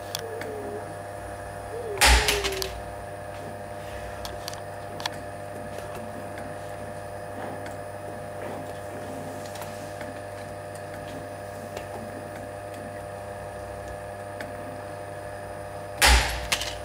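CNC spring-forming machine making stainless steel spring clips, running with a steady hum. A loud metallic clack with a brief rattle comes about two seconds in and again near the end.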